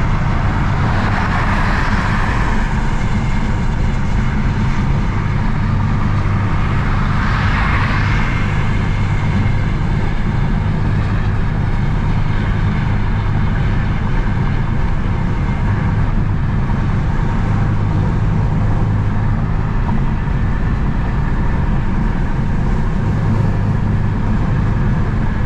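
BMW F80 M3's twin-turbo inline-six cruising at highway speed, heard from inside the cabin: a steady low engine hum under road and tyre noise, with a VRSF single mid pipe on the stock exhaust and little drone. Two brief swells of higher hiss come about a second in and again about seven seconds in.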